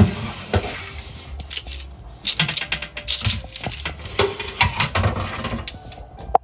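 Metal baking tray of bread loaves being handled at the oven: a sharp knock, then irregular clattering and scraping of the tray against the oven rack.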